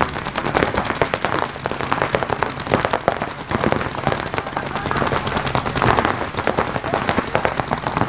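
Several paintball markers firing in rapid, continuous streams, the shots overlapping into a dense crackle many times a second.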